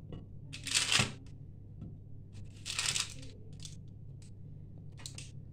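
Parchment baking paper rustling and crackling twice as baked pastries are lifted off a lined tray, with a few light clicks near the end and a low steady hum underneath.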